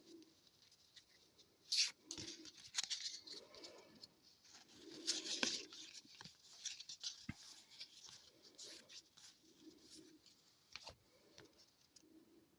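Hockey trading cards being handled: cards sliding, brushing and flicking against each other, with soft scrapes and clicks at irregular moments.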